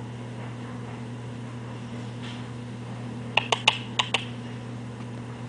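A quick run of about six sharp clicks, a little over three seconds in, over a steady low hum.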